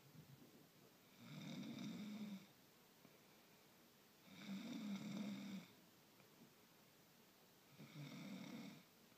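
A person snoring in their sleep: three long snores, each a little over a second, about three seconds apart, with quiet in between.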